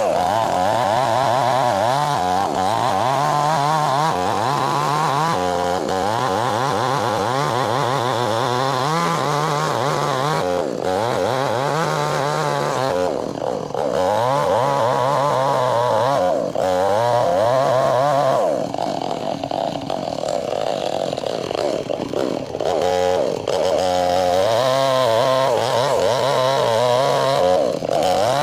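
A two-stroke chainsaw running at high revs while ripping a log lengthwise, its engine pitch wavering under load. The revs dip briefly several times along the way.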